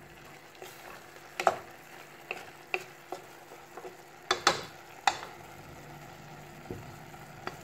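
Wooden spoon stirring minced chicken and parsley in a stainless steel pot, with irregular knocks and scrapes against the metal. A faint sizzle runs underneath.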